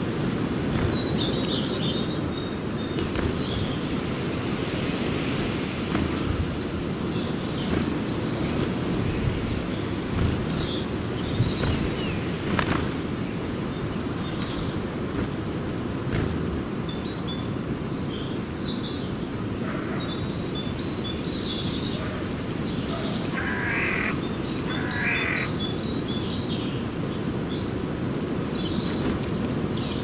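A flock of small birds in a feeding frenzy, chirping and calling in many short, high notes, with quick runs of repeated notes in the second half and a couple of lower, harsher calls. Under them is a steady low rumble of background noise.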